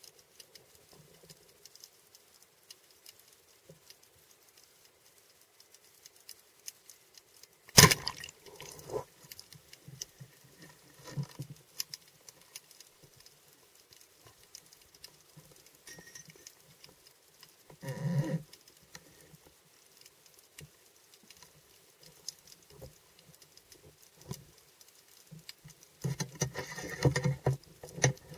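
Underwater crackling and faint clicks, broken about eight seconds in by one sharp, loud crack as a speargun is fired. Scattered knocks from the gun, shaft and line being handled follow, with bursts of water and bubble noise about two-thirds of the way in and again near the end.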